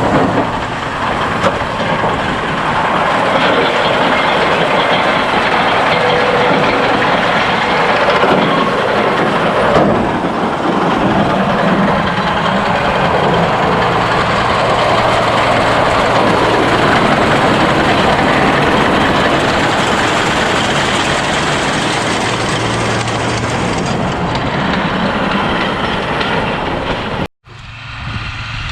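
Farm tractor engine running steadily, with rattling machinery noise over it. About 27 seconds in, it cuts off abruptly and a quieter engine sound follows.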